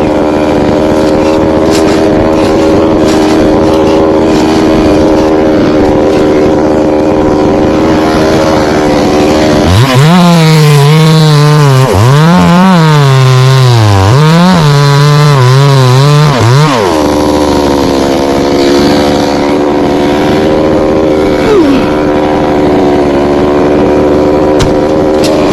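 Two-stroke chainsaw idling, then revved to full throttle about ten seconds in and cutting through the coconut trunk for some seven seconds, its pitch dipping several times as the chain bites, before dropping back to idle.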